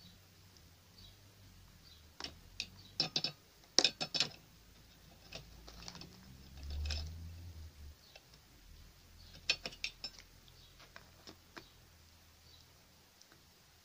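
Crinkling and crackling of foil and tape wrapping as hands squeeze and wrap a wire sculpture armature, in two bunches of sharp crackles with scattered clicks between.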